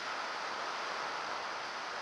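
Steady rush of wind noise from the airflow over an action camera's microphone in flight, an even hiss without rises or breaks.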